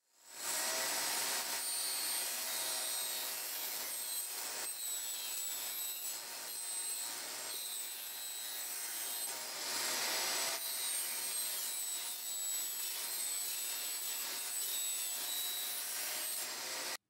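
Table saw running and cutting a wooden sheet fed along the fence: a steady noise with a high blade whine. It fades in at the start and cuts off abruptly near the end.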